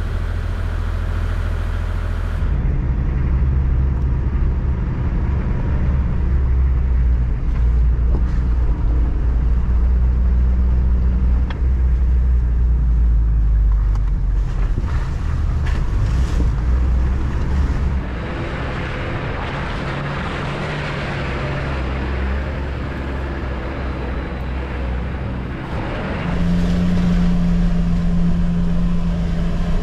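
4WD vehicle driving on a wet gravel track, heard from inside the cab: the engine runs steadily under tyre and road noise, with the engine note changing and getting louder near the end.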